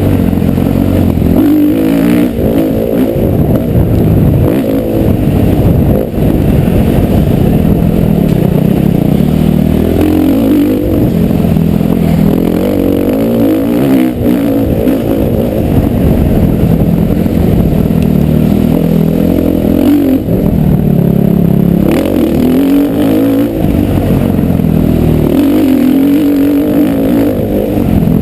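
Motocross bike engine being ridden hard, its revs climbing and dropping again every few seconds, with clatter from the bike over the track.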